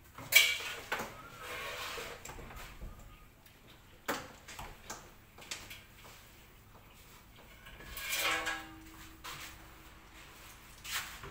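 Scattered clicks, knocks and light clatter of parts and tools being handled on a jet ski, the sharpest knock just after the start, with a brief pitched squeak about eight seconds in.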